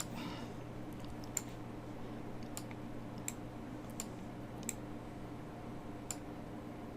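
Single sharp clicks from working a computer, about six of them spread a second or so apart, over a faint steady electrical hum.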